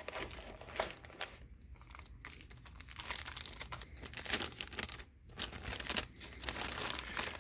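Blue anti-static plastic bag crinkling and rustling as it is lifted from a cardboard box and a small display panel is slid out of it, with scattered light clicks. The crinkling gets busier in the second half.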